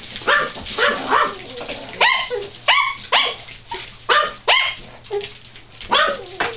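Small dogs barking at feeding time, eager for their food: a quick run of short, high-pitched barks, about two a second.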